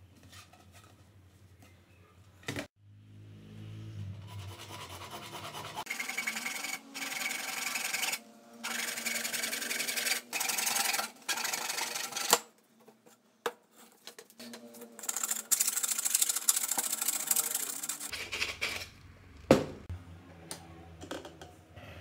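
Hacksaw blade rasping through a PVC pipe, in stretches of a second or two with short breaks. A sharp knock comes a few seconds in and another near the end.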